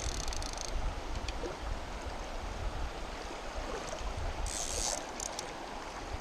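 Water lapping and splashing, with wind rumbling on the microphone, and a short high hiss about four and a half seconds in.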